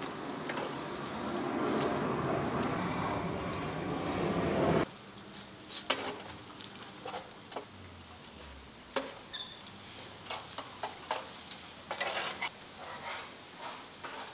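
Scraping and clinking inside a ceramic tandoor as it is cleaned out: a continuous scratchy rasp for about five seconds that cuts off abruptly, then scattered scrapes, clicks and clinks of metal against the pot.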